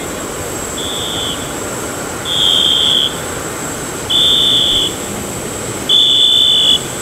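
Motion warning beeper of a passenger boarding-stair truck pulling back from an airliner's door: four long, high-pitched beeps, one about every two seconds.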